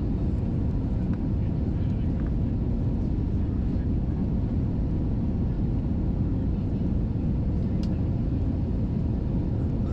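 Steady low rumble of engine and airflow noise heard inside the cabin of an Airbus A320 airliner in flight.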